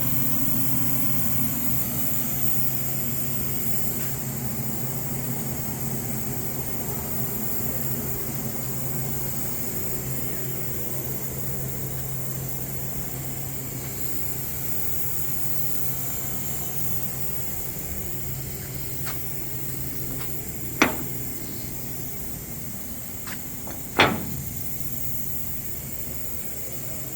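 Lincoln welding machine running with a steady low hum and hiss. Two sharp clicks near the end.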